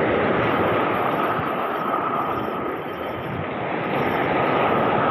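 Surf washing over shoreline rocks: a steady rushing sound that swells, eases about three seconds in, and swells again, with a faint steady high whine underneath.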